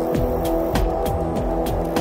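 Experimental rock music recorded live: a steady droning chord with quick repeated percussive hits, each dropping in pitch, about three or four a second.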